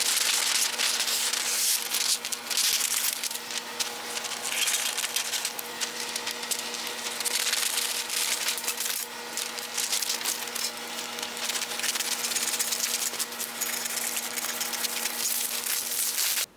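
Continuous scratchy hand rubbing or sanding, dense irregular strokes, over a steady electrical hum; it cuts off suddenly at the end.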